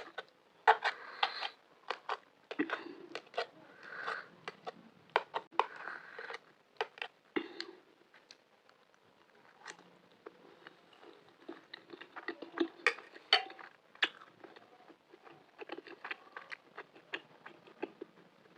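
Close-miked eating sounds: a spoon clicking and scraping against a plate or bowl, with chewing of macaroni in between. The sounds come in short, irregular bursts, with a quieter pause around the eighth to ninth second.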